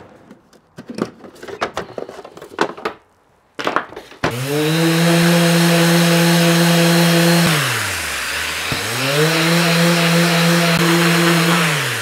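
Pieces of plywood knocking and clattering as they are handled, then an electric power tool spinning up, running at a steady pitch for about three seconds, winding down, and running once more before winding down again near the end.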